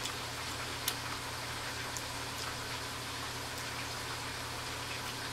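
Cornmeal-battered catfish frying in hot oil in a cast-iron deep fryer: a steady sizzle with scattered crackling pops.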